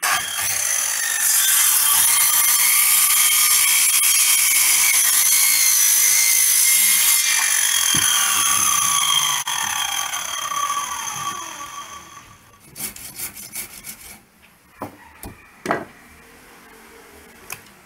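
Handheld electric circular saw cutting through wooden boat timber with a high whine. After about nine seconds the motor is released and winds down with a falling pitch. Then come several short knocks and clicks of tools and wood being handled.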